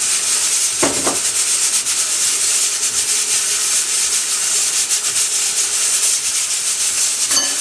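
Chunks of meat frying in hot oil in a metal pot, sizzling steadily while a wooden spoon stirs and scrapes them through tomato paste as the meat browns.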